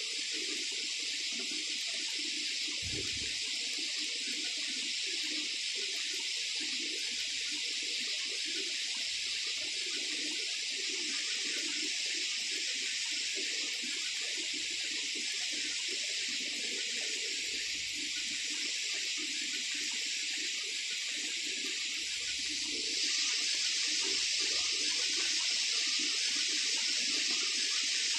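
Steady hiss of noise, with no rising or falling siren tone, growing a little louder near the end.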